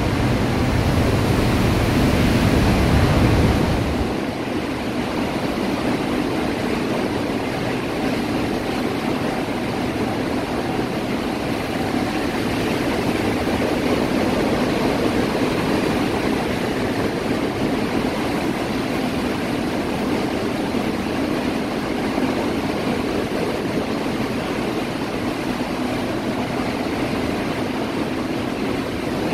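Heavy hurricane rain and wind, a steady rushing hiss. A deeper rumble is louder for the first four seconds, then fades.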